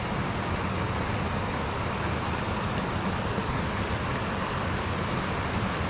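Steady rush of water pouring over a low dam spillway.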